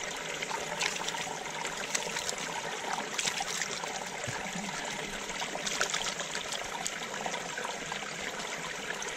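A small creek trickling and splashing over rocks close to the microphone, a steady rush with small splashes.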